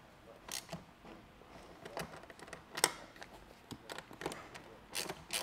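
Scattered light clicks and clinks of metal hardware as the bolts fixing the ladder brackets to a rooftop tent are tightened with a hand tool.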